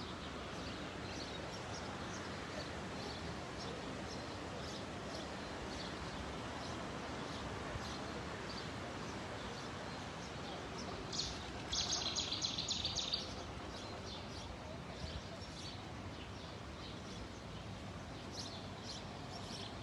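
Steady rush of muddy floodwater running across a road, with small birds chirping now and then. A short burst of rapid, louder chirping comes about twelve seconds in.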